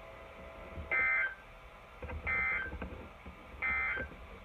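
Emergency Alert System end-of-message data bursts: three short, buzzy digital tone bursts about 1.3 seconds apart. This is the coded signal that closes a severe thunderstorm warning broadcast.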